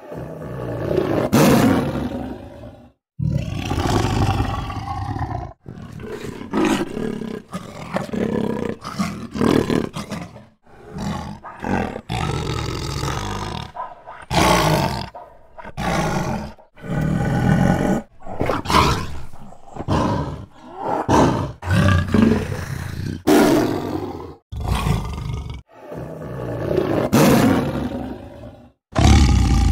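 Bengal tiger roaring and growling: a long series of loud calls of varying length, some cut off abruptly between clips.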